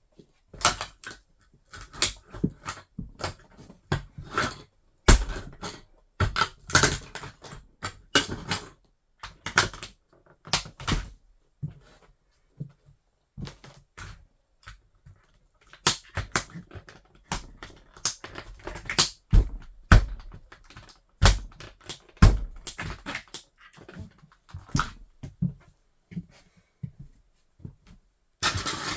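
Plastic toy car cracking and crunching under a wedge sandal: irregular snaps and crunches, with a handful of louder cracks and short pauses in between.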